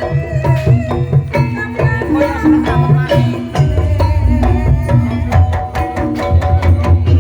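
Live Javanese ebeg gamelan music: kendang hand drums beat a steady pattern under struck tuned metal tones, with a bamboo suling flute line wavering above.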